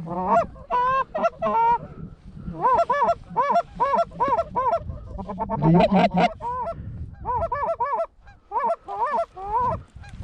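Geese honking and clucking in a rapid, overlapping run of short rising-and-falling calls, with a brief lull near the end.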